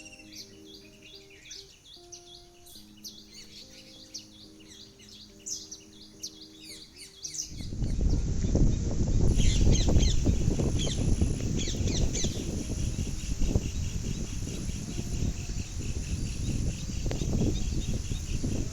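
Small birds chirping and twittering over soft background music with held notes. About seven seconds in, the sound cuts to a louder outdoor recording: a heavy low rumble with a hiss, and birds still chirping through it.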